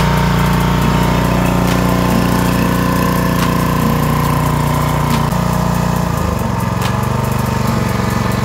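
Single-cylinder petrol engine of a PowerPlus POWXG9100 pressure washer running steadily, its note shifting slightly about six seconds in.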